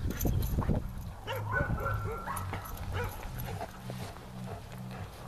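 A dog whining and giving short yips while tugging at a toy.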